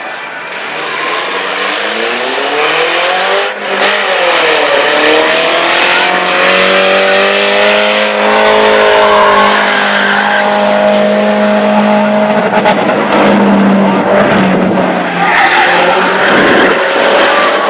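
Race car engines revving hard at speed, pitch climbing, dropping briefly about three and a half seconds in, then climbing again and holding high.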